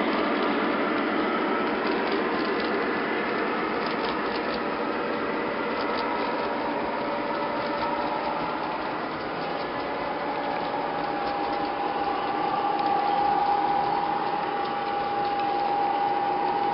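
O gauge model trains running on Gargraves and tinplate track: locomotive motors and gears whirring, with wheels rattling over the rails. A steady high whine comes up about ten seconds in.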